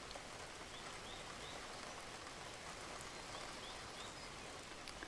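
Steady rain falling, an even hiss, with a few faint bird chirps: short rising notes in small groups about a second in and again past three seconds.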